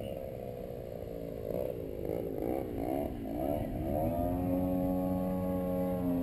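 RC model airplane engine running, its pitch wobbling quickly up and down several times, then settling about four seconds in to a steady, louder drone.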